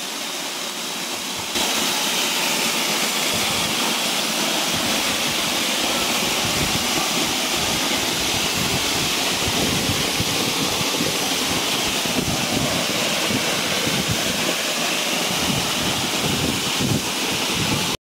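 Waterfall pouring onto rocks close by: a loud, steady rush of falling water that steps up in loudness about one and a half seconds in.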